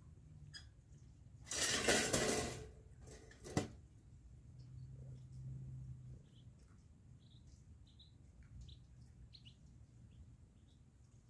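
Metal cage trap rattling loudly for about a second, then a single sharp click; faint short chirps follow.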